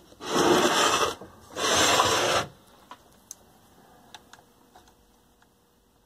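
Two short scraping rubs, each just under a second long, about a second apart, as the radio's cabinet is moved and turned on the workbench, followed by a few faint clicks of handling.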